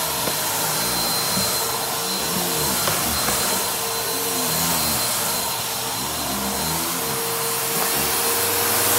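Upright vacuum cleaner running steadily over a rug. Its low pitch rises and falls in slow swells every couple of seconds as it is pushed back and forth, over a constant high motor whine.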